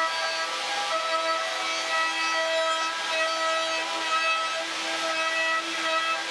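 Router mounted under a router table running steadily with a high whine as a curved wooden board is fed past the bit, cutting the wood.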